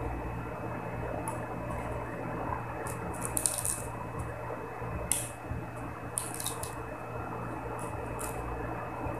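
Close-up eating sounds: short wet smacks and crackles from chewing and from fingers picking at food, scattered irregularly, the loudest about three and a half and five seconds in, over a steady low hum.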